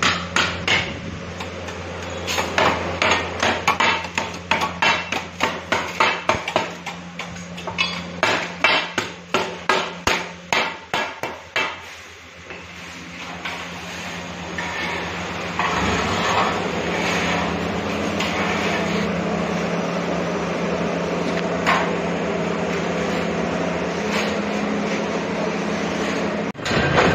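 Metal-on-metal strikes at a steady pace, about two a second, over a steady machine hum in a galvanised-iron electrical box workshop. About twelve seconds in, the strikes stop and a continuous machine drone carries on.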